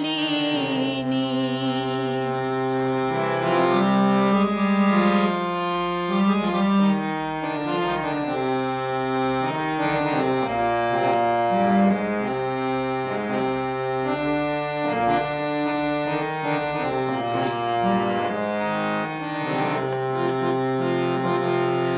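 Instrumental background music: a melody of held notes stepping up and down over steady chords, with no singing. It is the instrumental close of a Bengali song.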